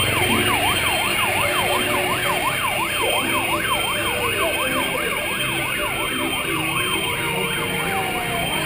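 Electronic siren sounding a fast yelp, rising and falling about three times a second. About halfway through it switches to a slow wail that falls over several seconds and starts to rise again near the end.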